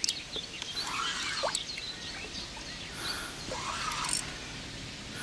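Birds singing: short arching chirped calls repeat every two to three seconds, over higher twittering. A couple of sharp clicks come at the start and about four seconds in.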